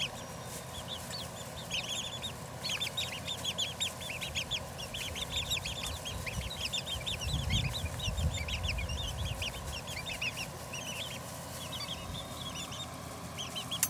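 A flock of young Silver Grey Dorking chickens peeping and cheeping: many short, high, down-sweeping chirps overlapping continuously.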